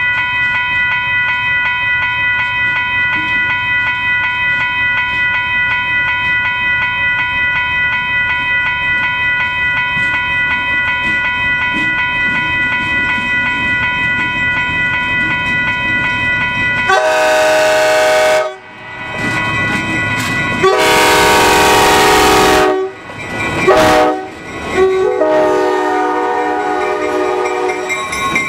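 EMD MRS-1 diesel locomotive approaching with a steady whine, then sounding its air horn in the grade-crossing pattern, long, long, short, long, starting a little past halfway. Passenger cars roll by under the last blast.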